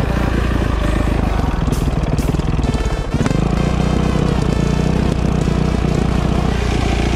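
450cc four-stroke dirt bike engine running under throttle. It briefly drops about three seconds in, then picks up again.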